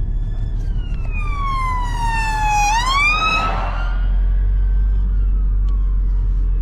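A siren wailing: its pitch falls slowly, then sweeps sharply up about three seconds in and fades away, over a steady low rumble.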